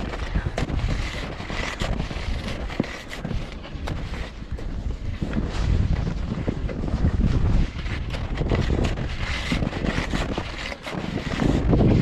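Wind buffeting the action camera's microphone in an uneven low rumble, with irregular crunching and knocking of hunting skis moving over snow. The rumble swells loudest near the end.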